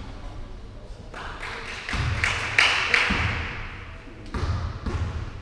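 A basketball thudding on an indoor hall court several times, with a louder swell of hall noise in the middle.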